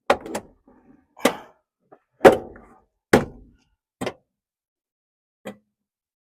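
Plastic cup holders knocking and clunking against a truck's dashboard as they are held up and tried in place: about seven separate knocks, the loudest a little over two seconds in, the last one faint.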